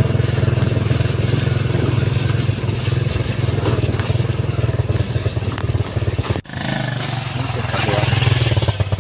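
Motorcycle engine running with a steady low drone. It cuts out abruptly for a moment about two-thirds of the way through, then carries on.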